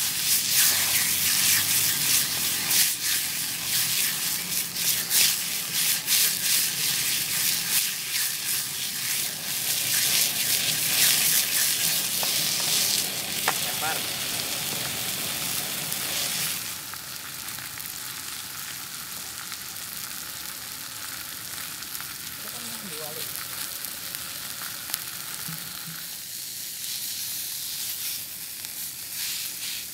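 Beef steak frying in a nonstick pan on a portable gas camp stove: a dense, crackling sizzle of spattering fat that eases to a quieter, steadier sizzle a little past halfway.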